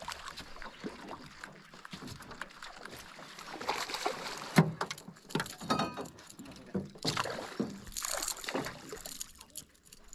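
Irregular knocks, rattles and handling noises of fishing gear and tackle being moved around in a small boat.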